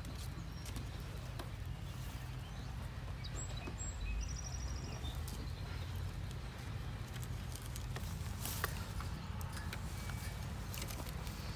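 Young grey squirrels scrabbling over a wire shopping cart and wooden boards, scattered small clicks and scrapes of claws on wire and wood, over a low steady rumble. A bird gives a brief high trill about four seconds in.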